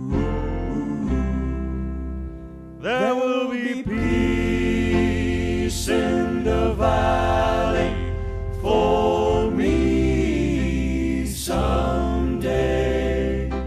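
Gospel ballad: voices singing in choir-like harmony over a steady bass and instrumental backing, growing louder about three seconds in.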